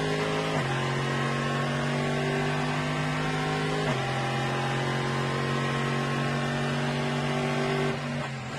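Corvette C6 ZR1-based race car's V8 engine at full throttle on a straight. It upshifts about half a second in and again about four seconds in, the revs climbing slowly in each gear, then lifts off near the end.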